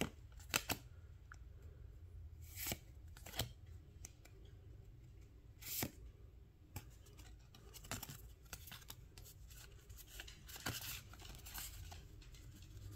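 Trading cards flipped through by hand, each card slid off the front of the stack and tucked behind: faint scattered clicks and swishes of card stock, with a denser rustle of cards about ten seconds in.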